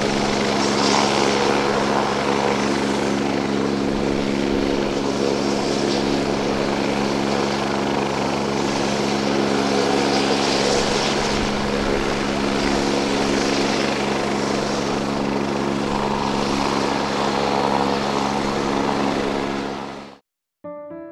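Beechcraft A36 Bonanza's six-cylinder piston engine and propeller droning steadily, with a hiss that swells and eases every few seconds. The sound cuts off abruptly near the end.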